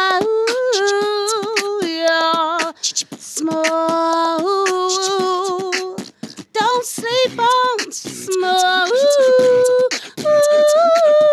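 A cappella vocal music: held sung notes stepping between pitches over beatboxed clicks and beats, with a few short breaks.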